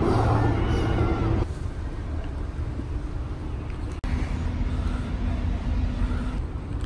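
Low, steady rumble of city traffic. A steady low hum sits over it and drops away about a second and a half in.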